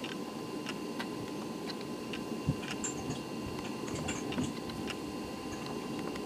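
Light regular ticking, about three ticks a second, over a steady low hum and a faint steady whine.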